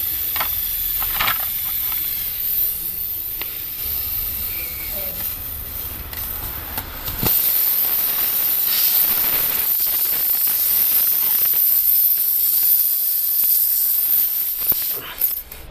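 Air hissing out of a punctured tire around a plug-kit repair tool. A few light clicks and scrapes are followed about seven seconds in by a loud, steady hiss that stops shortly before the end.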